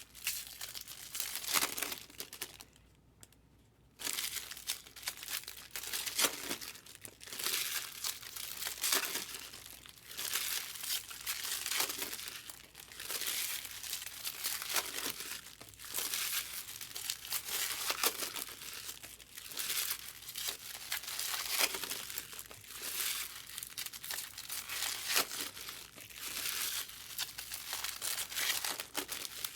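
Foil wrappers of Topps Chrome Platinum Anniversary card packs being torn open and crinkled, in repeated bursts of crackling, with a short lull about three seconds in.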